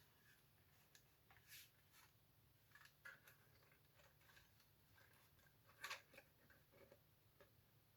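Near silence with a low steady hum, broken by a few faint clicks and rustles of the opened dictation machine's plastic parts being handled, the loudest about six seconds in.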